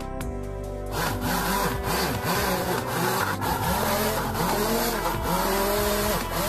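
Small DC-motor mini drill whining as its fine bit bores holes into a plastic board, the pitch dipping and rising each time the bit bites and frees. It starts about a second in.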